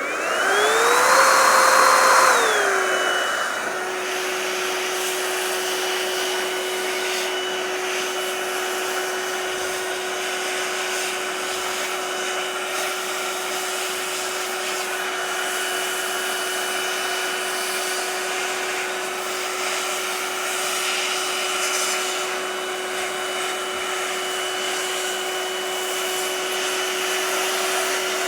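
Electric air-duster blower motor starting with a rising whine and a louder rush of air for the first couple of seconds, then running at a steady whine while it blows dust and leftover alcohol out of a laptop's cooling fins.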